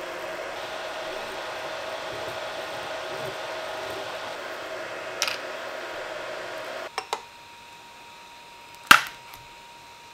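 Ender-3 V2 3D printer running a print: a steady whir of its fans and motors with a held hum, and a single click about five seconds in. It cuts off abruptly about seven seconds in. A few sharp plastic clicks follow, the loudest about nine seconds in, as the printed calibration cubes are handled.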